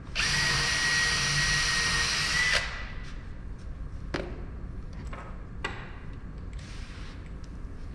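Cordless drill boring a pilot hole into the wooden beam: a steady whine for about two and a half seconds, rising slightly just before it stops. A few sharp knocks follow as tools are handled.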